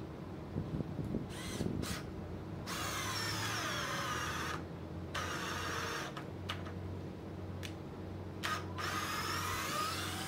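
Total TDLI20025 20 V cordless drill/driver driving a long 8 × 120 mm screw into a wooden board. It starts with a few short trigger bursts, then gives two longer runs of motor whine with a pause and brief blips between them, the pitch sagging as the screw bites under load.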